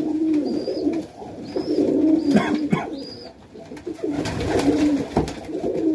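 Domestic pigeons cooing in a loft, several low wavering coos one after another, with four short high-pitched notes in the first few seconds and a few sharp clicks near the end.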